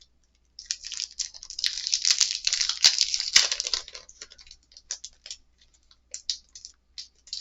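Board game cards and pieces being handled: a dense rustle lasting about three seconds, then scattered light clicks and taps.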